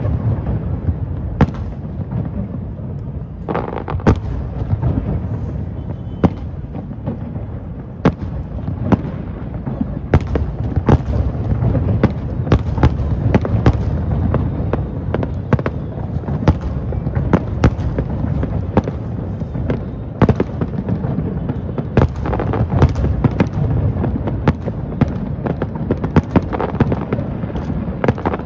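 A fireworks display: a continuous low rumble of shell bursts with many sharp, irregular bangs and cracks, several a second at times.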